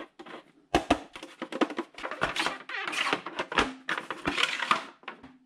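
Background music with a percussive drum beat.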